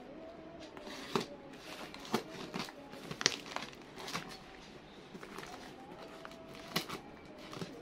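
Scissors snipping into a parcel's wrapping and the wrapping crinkling as the parcel is cut open and handled, with scattered sharp clicks; the loudest snip comes a little past three seconds in.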